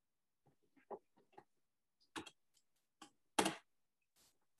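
A handful of faint, irregularly spaced clicks and taps, the loudest about three and a half seconds in.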